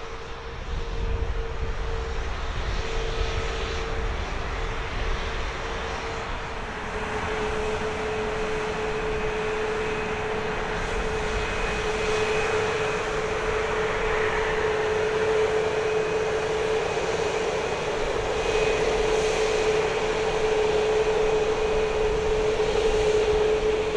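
Airbus A321neo's turbofan engines running at idle as the airliner taxis slowly after landing: a steady jet whine with one constant mid-pitched tone, growing gradually louder as it comes closer.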